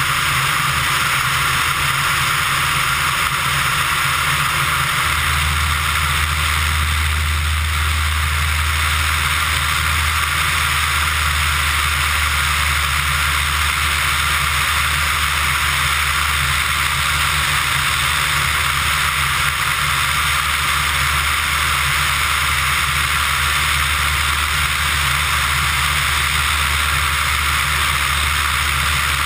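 Pipistrel Virus ultralight aircraft in flight: a steady engine and propeller drone under wind rushing over the tail-mounted camera. The low drone grows stronger about five seconds in.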